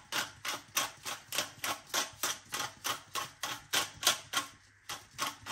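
Hand pepper mill, nearly empty, being twisted to grind pepper into a pot: a sharp click with each turn, about four a second, with a brief pause near the end.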